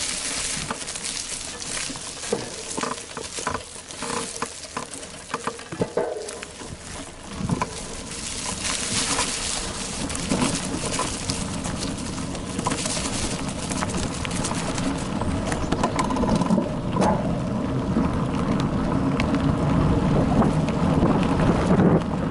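Bicycle riding over a leaf-covered forest dirt trail, heard from a camera mounted on the bike: tyres crunching through dry leaves and the bike rattling, with many small clicks. From about a third of the way in, a rushing, rumbling noise builds and grows louder as the bike picks up speed again.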